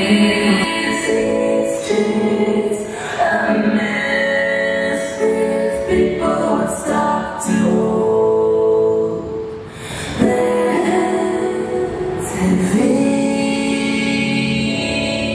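Song playing as dance accompaniment: a singing voice, mostly a woman's, over sustained accompaniment. It eases off briefly a little past halfway and then swells again.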